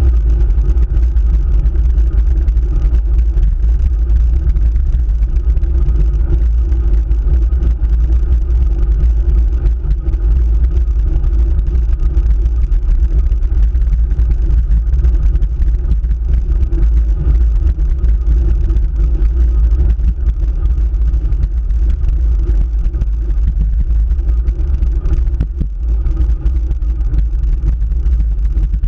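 Steady wind rumble and road vibration on a handlebar-mounted camera as a road bike climbs a paved road.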